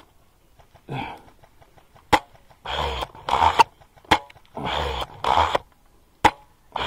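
Airsoft guns firing single shots: three sharp cracks about two seconds apart, among several louder half-second bursts of noise.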